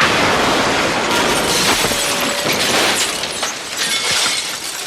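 Cartoon crash sound effect: glass shattering and debris clattering. It starts suddenly and loud, then keeps up as a long run of breaking and tinkling that slowly dies down.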